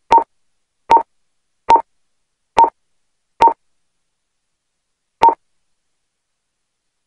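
Key-press beeps from an Axalto handheld card terminal: six short, identical beeps at one mid pitch, one per button press as its menu is scrolled and an option selected. Five come about one a second, and a sixth about five seconds in, with dead silence between.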